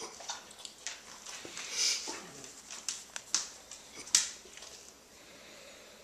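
Dog breathing hard through the nose in a few short, breathy sniffs as a mild reverse sneeze dies down, with a few sharp clicks in between. It goes quiet after about four and a half seconds.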